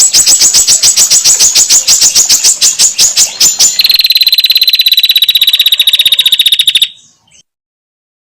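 Female prinia (prenjak) calls: a loud, harsh run of rapid repeated chattering notes, about six a second, then a faster, higher rattling trill. The calls stop about 7 s in.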